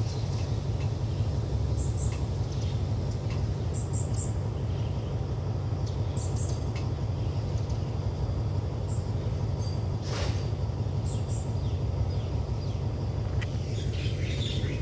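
Container freight wagons rolling past on the rails with a steady low rumble, with short high chirps every couple of seconds over it.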